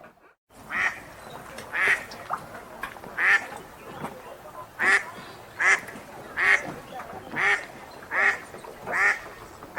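Wild duck quacking repeatedly, about nine quacks roughly a second apart, over a faint steady lake ambience. The sound drops out completely for about half a second at the very start.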